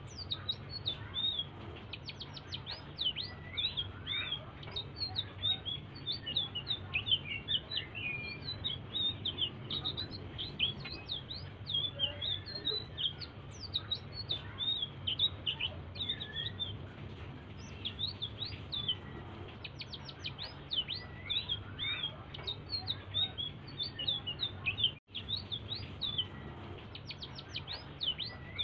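A small songbird, called selendang biru by the uploader, singing a fast, unbroken run of high chirps and quick downward-swept notes, over a low steady hum. The sound cuts out for a split second about 25 seconds in.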